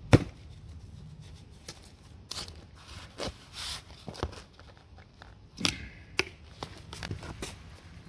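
Stingless bee hive box being levered apart: a sharp crack just after the start, then scattered clicks and knocks and a short scraping rasp as the sealed halves come away.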